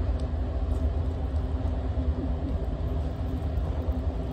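Steady low outdoor rumble with a faint, even machine-like hum underneath; no distinct events.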